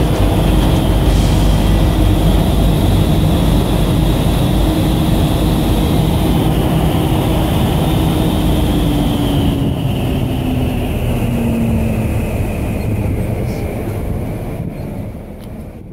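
The fans of a mobile vertical wind tunnel run with a loud rush of air and a steady whine. About halfway through, the whine drops in pitch as the fans slow down, and the sound fades near the end.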